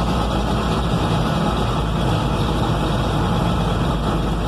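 Combine harvester's diesel engine running steadily at idle, just after a cold start that went without starting fluid.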